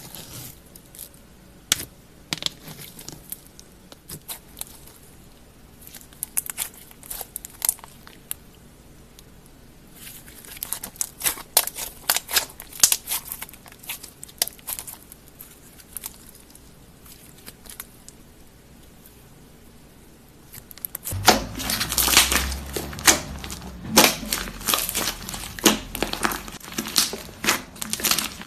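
Slime being squeezed and worked by hand, giving bursts of fine crackling and crinkling. It grows louder and denser about two-thirds of the way through.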